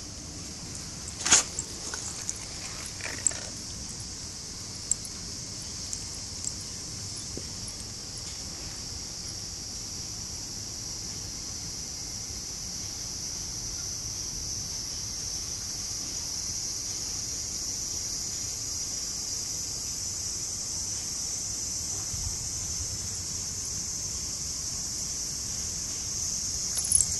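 A steady high-pitched insect drone that slowly grows louder. A sharp click comes about a second in, with a few lighter clicks over the next several seconds.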